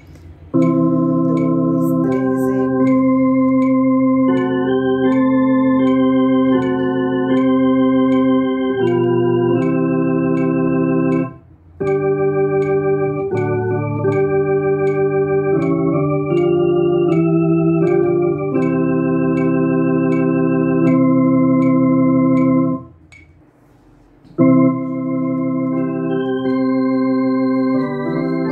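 Two-manual electronic organ playing a hymn passage in sustained, held chords that change every second or so, with two brief breaks: one near the middle and one near the end.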